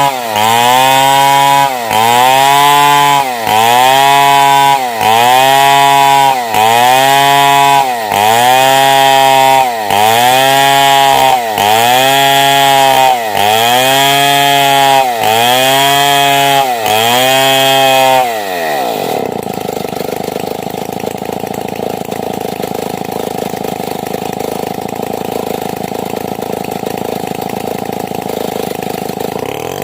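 Stihl 070 two-stroke chainsaw ripping lengthwise through a timber beam, its engine pitch sagging under load and recovering about every second and a half. About two-thirds of the way in, the revs fall away and the saw idles steadily, then it revs up again at the very end.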